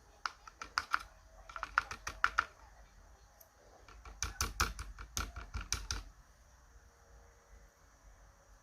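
Small metal lock parts clicking and tapping as they are handled, in two quick bursts of clicks, the second starting about four seconds in.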